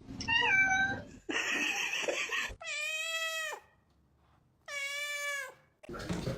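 A cat meowing several times. The last two meows are long and hold their pitch, then drop off at the end.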